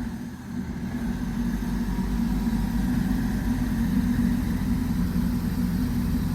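Ford Focus ST's engine running at a steady idle, a low even hum that grows a little louder over the first two seconds and then holds.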